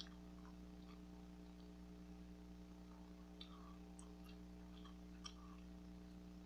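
Near silence: faint, irregular wet clicks of bubble gum being worked in the mouth, over a steady low electrical hum.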